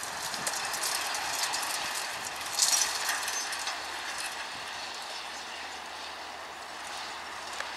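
Claas Liner 2600 twin-rotor rake rattling and clattering as its tine arms turn, drawn by a John Deere 6930 tractor whose engine is heard only as a faint hum. There is a brief louder clatter about two and a half seconds in.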